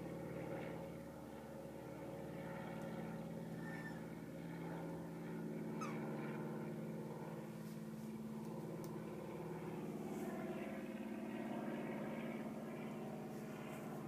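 A steady low mechanical hum, like an idling engine or machine, whose pitch shifts slightly a couple of times. A few faint short bird chirps sound over it.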